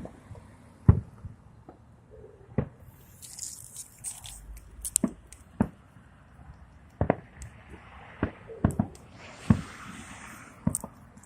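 Fireworks bursting: about a dozen separate bangs and pops at uneven intervals, with crackling hiss from some shells at times.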